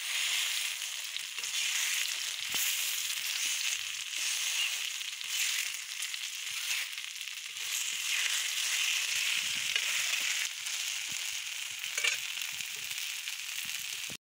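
Gram-flour-coated taro-leaf slices sizzling steadily as they shallow-fry in oil in a small iron pan, with a few clicks and scrapes from a metal spatula turning them. The sound cuts off suddenly near the end.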